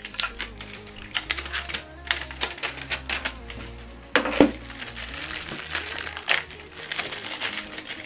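Plastic packaging crinkling and rustling, with scattered clicks, as a small power adapter is unwrapped by hand and handled on a table, and one louder clatter about halfway through.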